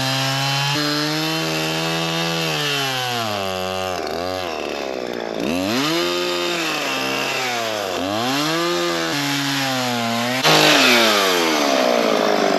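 A chainsaw cuts through a palm trunk. Its motor pitch drops and recovers again and again as the chain bogs in the cut and speeds up. It gets louder about ten seconds in.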